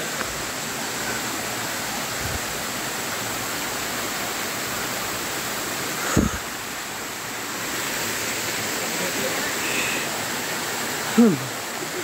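Steady rush of a rocky mountain stream and waterfall pouring over boulders, an even wash of water noise. A short thump about six seconds in, and a brief voice near the end.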